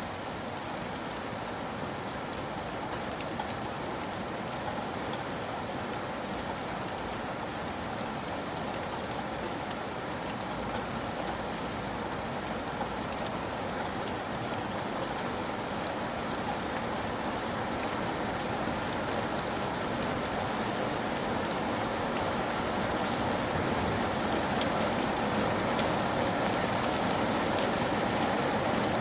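Steady rainfall with many fine drop ticks, a constant hiss that slowly grows louder over the stretch.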